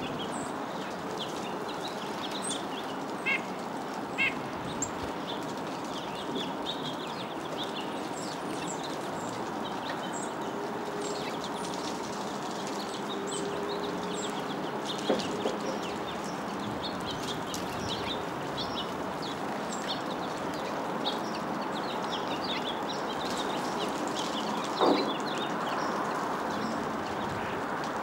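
Small backyard songbirds chirping: many short, high calls scattered throughout over a steady outdoor background noise, with a few louder short knocks, the loudest near the end.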